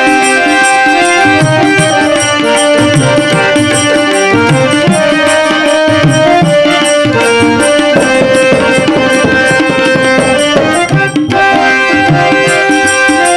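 Instrumental interlude of a Hindi devotional dhun: harmonium playing the melody in stepped notes over a steady tabla rhythm, with a brief dip about eleven seconds in.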